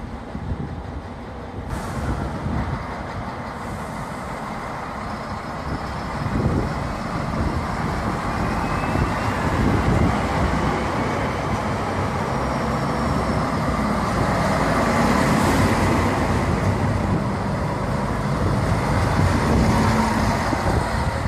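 Diesel railcar of the Stadler RegioShuttle type (class 650) running right beside the platform, its engine sound building steadily louder, with a faint whine gliding in pitch near the middle.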